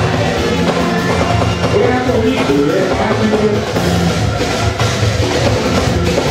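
Live music with a steady beat on drums and percussion, played under pitched instruments.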